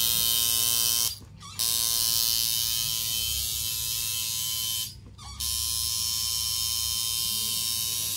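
Electric tattoo machine buzzing steadily while the artist finishes the outline of a lettered tattoo on skin. It stops twice, each time for about half a second.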